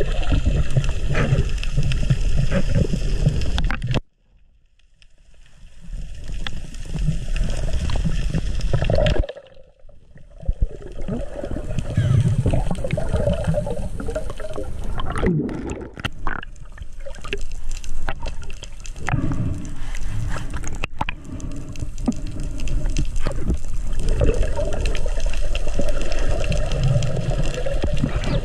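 Underwater water noise around a diving camera's housing: a low, dense rush with scattered clicks. It cuts out abruptly about four seconds in, fades back over a couple of seconds, and dips again briefly near ten seconds.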